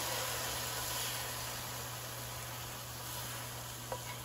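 Sautéed pears in a hot frying pan still sizzling as a steady hiss that slowly fades while they are slid out onto a plate, with one light click near the end.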